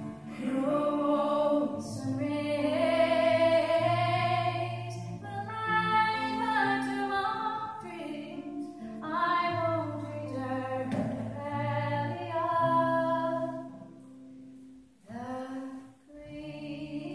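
A woman singing live in long, held phrases, accompanied by her own strummed acoustic guitar. The music drops to a quieter passage near the end.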